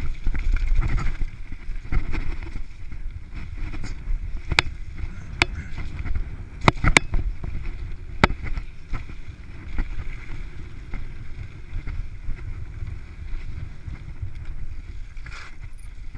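Downhill mountain bike ridden fast over a dirt trail: a steady rumble of tyres and wind, with sharp clicks and rattles from the bike over bumps, several close together around the middle.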